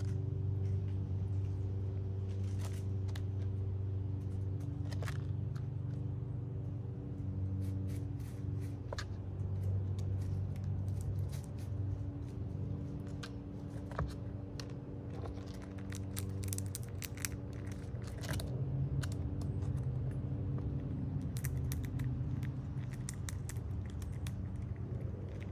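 Gray squirrel cracking and chewing seeds at a feeder: scattered sharp crunches and clicks, over a steady low hum.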